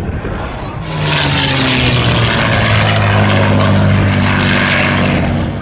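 P-51D Mustang's Packard Merlin V-12 engine and propeller in a low flyby. The sound grows loud about a second in, and the engine drone sinks slightly in pitch as the plane passes.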